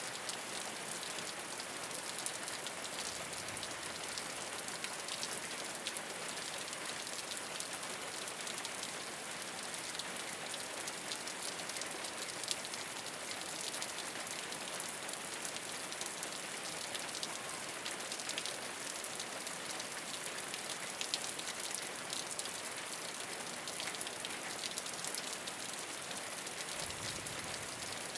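Steady rain falling on a rooftop, an even hiss dotted with many small drop ticks.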